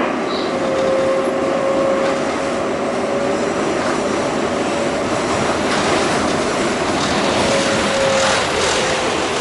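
R188 subway car running at speed, heard from inside the car: a steady rumble of wheels on the rails, with a thin steady tone running over it.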